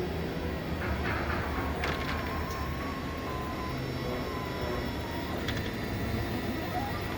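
Off-road vehicle driving at speed: a steady low rumble and road noise, with a faint whine that slowly falls in pitch and a few sharp clicks about two and five seconds in.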